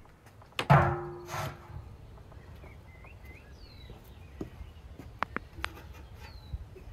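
A large metal cauldron clangs about a second in, with a ringing tone and a second knock just after. Later come a few light clicks, with birds chirping.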